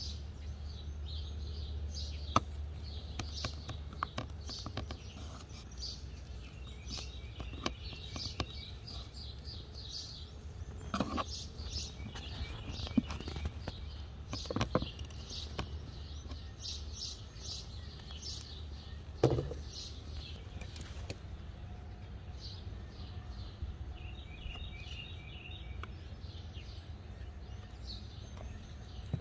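Birds chirping over a steady low outdoor rumble, with now and then the short scrape and tap of a metal putty knife mixing Bondo body filler on a board and spreading it on a door.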